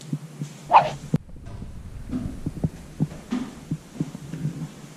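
Footsteps climbing a staircase: a run of dull, irregular thuds, a few a second. A short rising whoosh comes about three-quarters of a second in and is the loudest sound.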